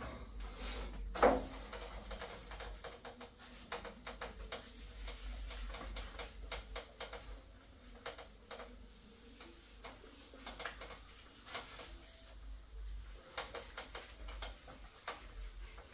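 A whiteboard eraser being rubbed across a whiteboard: irregular soft scrubbing strokes with small clicks and taps, and one sharper knock about a second in.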